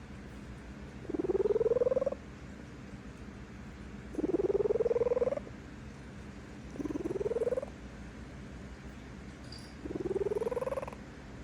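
Sleeping cat purring contentedly: four buzzy swells about a second long, each rising in pitch, come roughly every three seconds, with a faint low purr between them.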